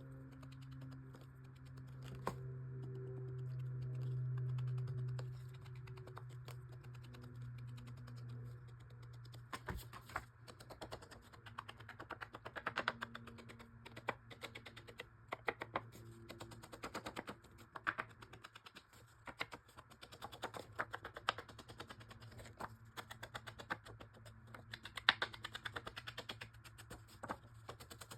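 Irregular quick taps of an ink blending tool or ink pad being dabbed onto the edges of paper pieces. A low steady hum runs under the first nine seconds or so, loudest around four seconds in.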